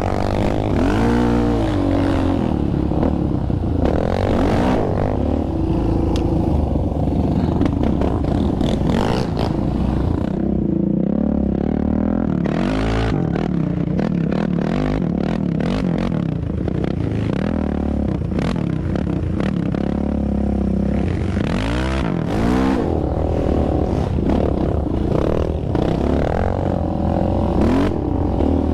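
Yamaha Raptor 700R sport quad's single-cylinder engine revving up and down again and again while ridden over a rough dirt trail, with clatter and scraping from the bumps throughout.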